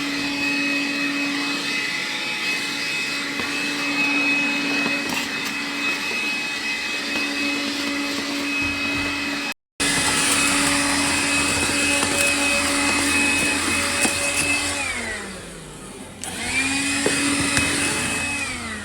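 Numatic Henry vacuum cleaner running steadily, winding down with falling pitch after about fifteen seconds, then switched on again and winding down once more near the end.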